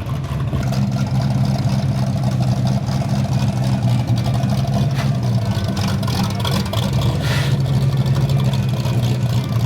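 A car engine running at steady revs: a low, even drone that holds without revving up or down.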